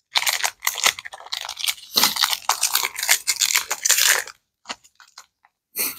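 Foil trading-card booster-pack wrapper crinkling loudly as it is handled and the cards are pulled out, for about four seconds. A few faint short clicks follow.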